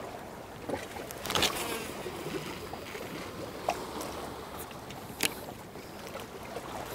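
Water lapping and sloshing at the shoreline, with a few sharp clicks and knocks, the loudest about a second and a half in.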